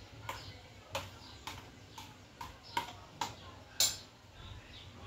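A spoon tapping and scraping sururu (small mussels) out of a plastic bowl into a metal pot: a string of short, irregular clicks and knocks, the sharpest near the end.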